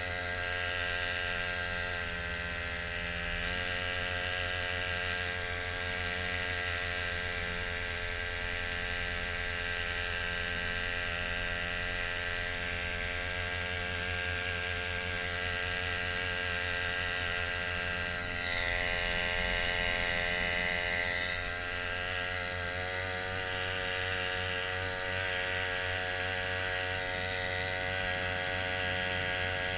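Small outboard motor on a kayak running steadily at an even speed, with a constant whir. About two-thirds of the way through, a louder hiss rises over it for a few seconds and then drops away.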